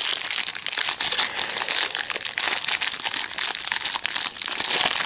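Thin clear plastic toy bag crinkling and crackling continuously as hands open the packaging of a McDonald's Happy Meal toy and work the toy out of it.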